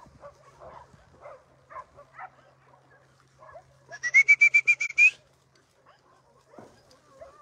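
A goat's bleat: a single loud, high, quavering cry about a second long, pulsing about nine times and lifting slightly at its end, about four seconds in.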